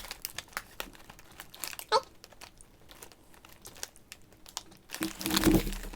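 Snack packaging crinkling as it is handled: scattered, irregular crackles, with a brief louder stretch near the end.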